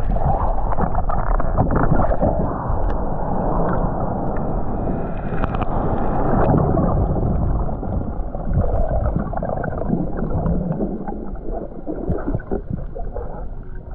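Muffled rushing and gurgling of water heard through an underwater camera while swimming, with scattered small clicks and bubble sounds; slightly quieter in the last few seconds.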